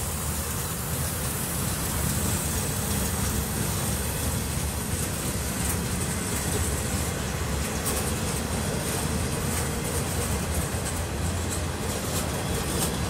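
Freight train cars rolling past close by: a steady rumble of steel wheels on rail, with sharp clicks from the wheels coming more often in the second half.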